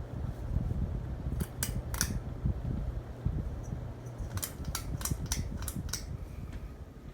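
Harbor Breeze Armitage ceiling fan running with a low hum and rush of air. Sharp clicks come over it: three about a second and a half in, then six in quick succession from about four and a half seconds in.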